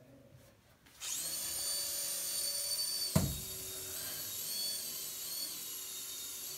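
A small hover-ball toy's propeller motor starts about a second in and runs with a high-pitched whine. A single thump comes about three seconds in, and after it the whine wavers in pitch as the toy hovers.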